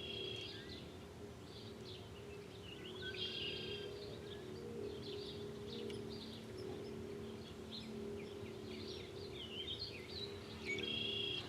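Songbirds chirping and trilling again and again, over a steady low hum.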